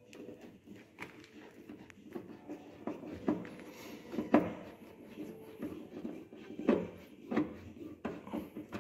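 Screwdriver and hands working on a plastic licence plate holder: irregular clicks and knocks of plastic, with a few louder taps spread through.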